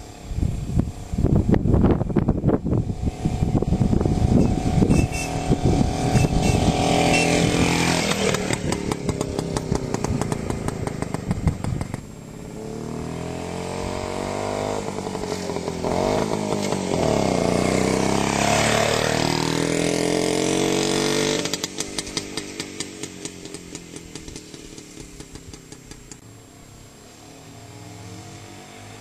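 1954 BSA D1 Bantam's two-stroke single-cylinder engine running and being revved, its pitch rising and falling again and again. It grows loud about a second in and fades away over the last several seconds.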